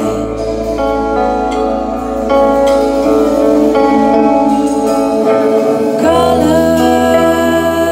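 Live band music: a woman singing over electric guitars and bass guitar, with long held notes and a bass line that shifts about five and six seconds in.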